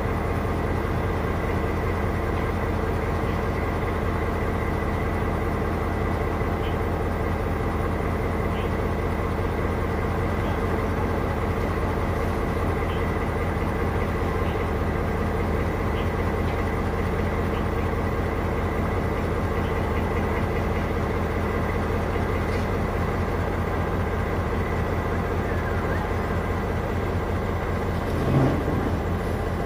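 Diesel railway engine idling with a steady low hum. A single short knock sounds near the end.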